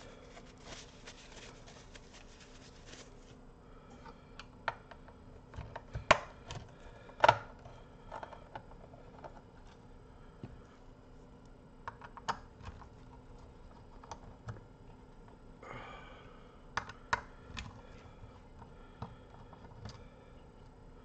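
A paper towel rubs over a circuit board, then a screwdriver clicks and taps in scattered single strokes against the amplifier's metal parts, the two loudest about six and seven seconds in.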